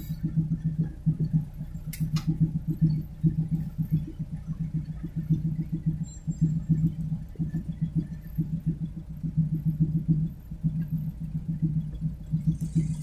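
Chevrolet Opala engine idling from inside the cabin, with a fast, uneven pulsing beat. A single sharp click about two seconds in.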